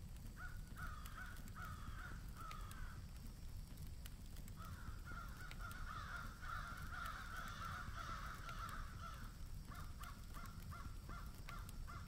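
Crows cawing in repeated runs of calls: a first series starting about half a second in, a longer unbroken stretch from about four and a half to nine seconds, then short separate caws near the end.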